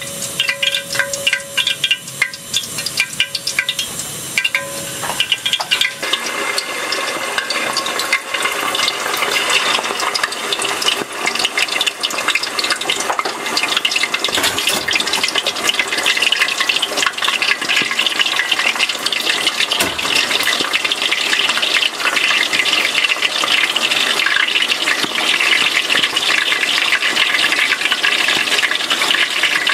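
Coated pieces of Japanese stargazer deep-frying in hot oil, a dense, steady sizzling and bubbling crackle that grows louder after about six seconds.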